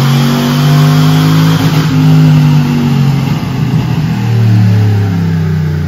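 Chevrolet Silverado's 4.8-litre LS V8, fitted with a Truck Norris camshaft and long-tube headers, revving loudly under load on a chassis dyno. Its pitch rises and falls, dipping about halfway through before climbing again.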